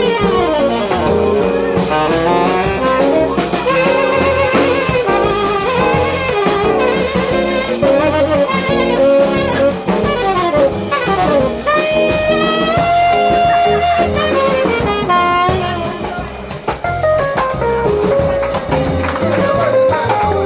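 Jazz quartet playing live: a horn plays a busy melodic lead over drum kit. The horn holds one long note about two-thirds of the way through.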